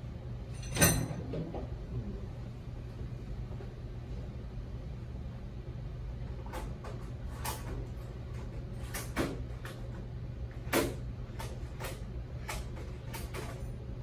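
Scattered clicks and knocks of tools and metal parts being handled on a workbench, with one sharp knock about a second in and a run of lighter clicks in the second half, over a steady low hum.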